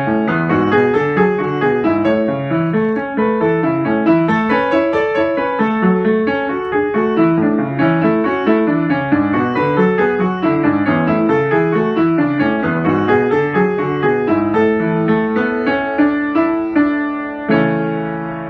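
Solo piano music: a flowing run of notes, ending on a chord struck near the end and left to ring and fade.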